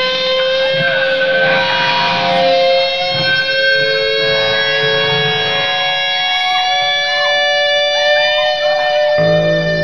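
Loud amplified electric guitar in a live band, holding one long sustained note that slowly rises in pitch, with low bass notes coming in about nine seconds in.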